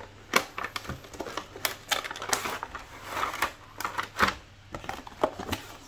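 A cardboard retail box being opened by hand, with the cardboard sliding and scraping and packaging rustling. Irregular clicks and taps run through it, with a couple of sharper knocks, about half a second in and about four seconds in.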